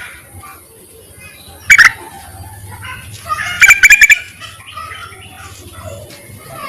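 Yellow-vented bulbul calling in short bursts of rapid, bubbly notes, once about two seconds in and again, longer, around four seconds in, with fainter chattering calls between. It is given as a female's call to a male.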